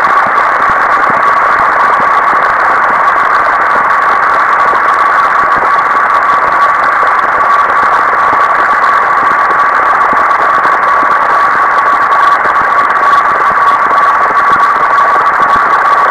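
Procedurally generated synthesized sound from a p5.js pixel-sorting program: a loud, steady band of static-like noise with one constant tone held through it, unchanging.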